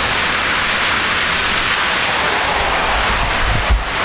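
Heavy thunderstorm rain pouring down steadily, with wind buffeting the microphone in low rumbles and a stronger gust hitting it near the end.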